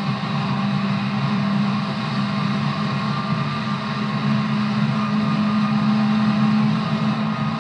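JR 211 series electric multiple unit running at a steady speed: a continuous drone of traction motors and running gear, with a steady low hum and a fainter whine above it.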